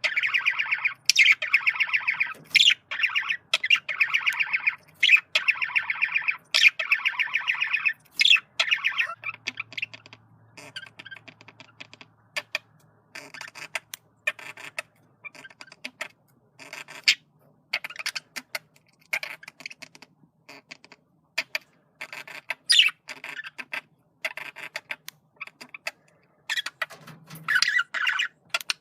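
Male budgerigar chattering: a dense, fast warble for about the first eight seconds, then a run of short, scattered chirps and clicks, with another burst of warbling near the end.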